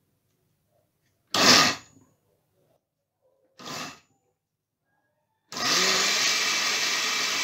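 Oster countertop blender pulsed in two short bursts, then switched on and running steadily from about five and a half seconds in, chopping chunks of onion, celery, bell pepper and garlic in a little water and vinegar.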